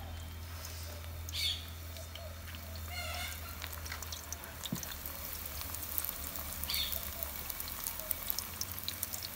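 Egg-battered fish fillets frying in hot oil in a pan, a steady crackling of many fine pops. A few short, high chirps stand out above it, about a second and a half in, around three seconds, and near seven seconds.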